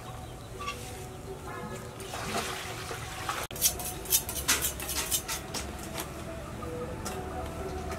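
Water swishing as greens are washed by hand in a metal bowl, then, about three and a half seconds in, a cleaver chopping meat on a wooden cutting board: about seven sharp knocks, roughly two a second.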